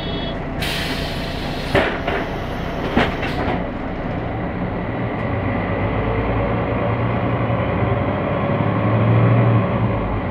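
Inside a MAN NG363 articulated city bus: a hiss of compressed air with two thuds as the pneumatic doors close, then the diesel engine running louder as the bus pulls away, loudest near the end.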